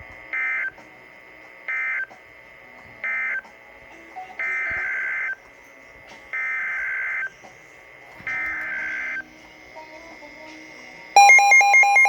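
Emergency Alert System SAME data bursts: three short bursts of two-tone digital warbling, the end-of-message code closing the marine warning, then three longer bursts, the header opening the next alert. About a second before the end, loud, rapid electronic alert beeping starts.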